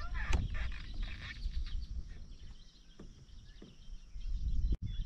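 Outdoor ambience at a reed-lined pond: birds chirping over an uneven low rumble of background noise, with a few light knocks.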